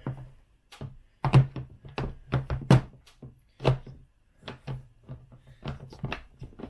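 Plastic knocks and clicks from the water tank and carry handle of a Kärcher OC3 portable pressure washer being handled, seated and clamped down: many sharp knocks in an irregular run, some heavier thunks among them.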